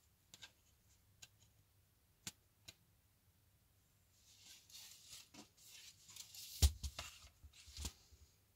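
Ultra-thin plastic wireless keyboard being handled: a few separate light clicks, then several seconds of rustling and scraping as it is picked up and moved. A thump comes about two-thirds of the way through, the loudest sound, and another near the end.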